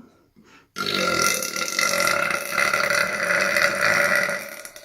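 A deliberate, loud, long burp, forced up from swallowed air. It starts about a second in and is held for about four seconds.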